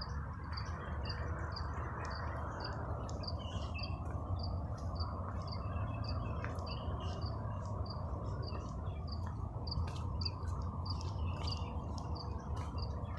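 A cricket chirping steadily, a regular run of short high chirps about three a second, over a steady low background rumble.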